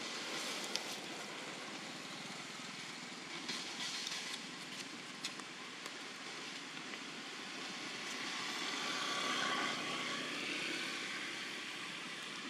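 Steady outdoor background noise, an even hiss that swells to a peak about two-thirds of the way through and then eases, with a few light clicks in the first half.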